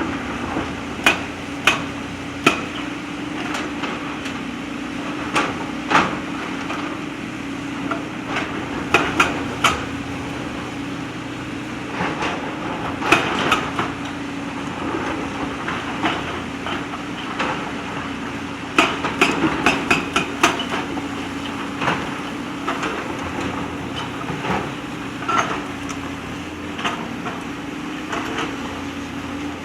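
JCB backhoe loader's diesel engine running steadily while stones clank against the steel bucket in irregular sharp strikes, several coming in quick succession now and then.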